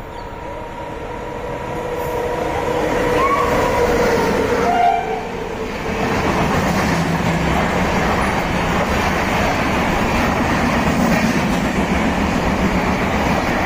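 Express train approaching and growing steadily louder over the first few seconds, then its LHB passenger coaches rushing past close by with a steady rumble and wheel clatter on the rails.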